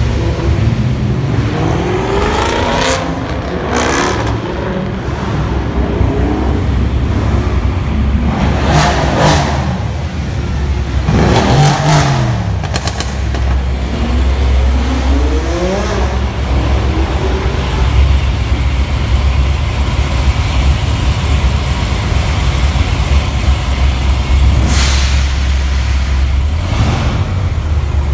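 Jeep Grand Cherokee V8 blipped and revved several times inside a parking garage, the engine note climbing and dropping again with each rev over a deep, steady idle rumble.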